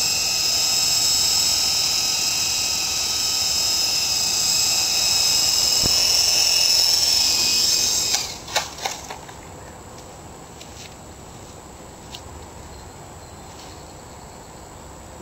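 Small electric RC helicopter (Hummingbird fixed-pitch) flying with the high whine of its motor and rotor. About eight seconds in the whine stops amid a few sharp clatters as the helicopter comes down and its blades strike the pavement, leaving only a faint hiss.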